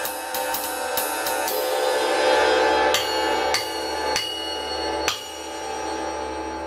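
1990s K Zildjian 20-inch flat top ride (about 2500 g) struck with drumsticks. A run of quick ride strokes builds to a louder wash about two seconds in. Then come four separate strokes, each with a clear high ping, and the last is left to ring out.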